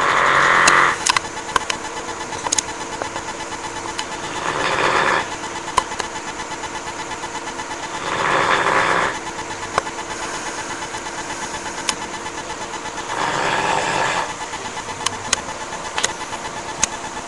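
A dog snoring: a noisy rasping snore about a second long roughly every four and a half seconds, over a steady hum with scattered sharp clicks.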